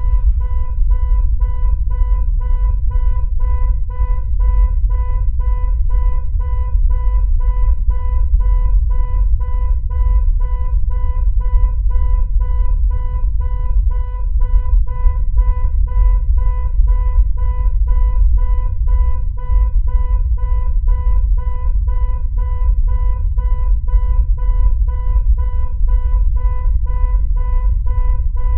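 Synthesized soundtrack drone: a steady tone with its overtones, pulsing evenly a few times a second, over a deep continuous rumble.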